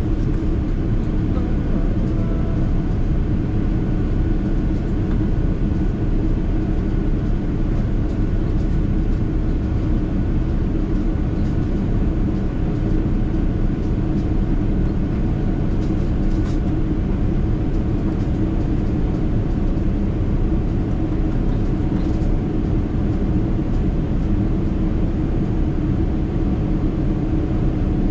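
Steady cabin drone of a Boeing 777-300ER climbing after takeoff: its GE90-115B engines at climb power and the rush of air past the fuselage, heard from a window seat, with a low hum and a few faint steady tones.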